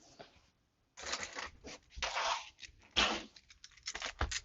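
Fidget toys being handled, giving irregular bursts of rustling and a few sharp clicks.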